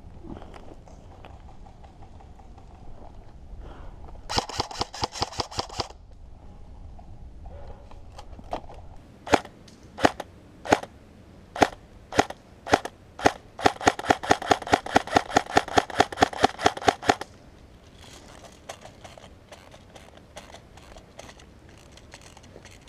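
Airsoft guns firing: a short full-auto burst, then a string of single shots about a second apart, then a longer full-auto burst of roughly three seconds at about six shots a second, the bursts carrying the whir of the gun's mechanism.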